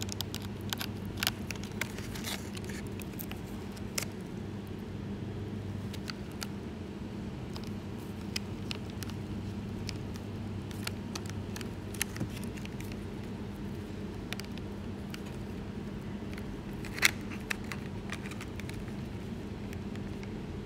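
Scattered small clicks and ticks of a precision screwdriver and plastic helicopter parts being handled and fitted, with one sharper click about three-quarters of the way through, over a steady low hum.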